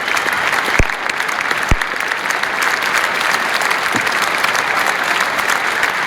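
Large crowd applauding steadily after degrees are conferred at a graduation, with a few sharper thumps standing out from the clapping.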